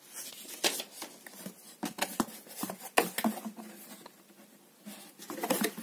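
Paper instruction sheet rustling and crinkling as it is handled, then a cardboard box picked up, making a string of irregular crackles and taps.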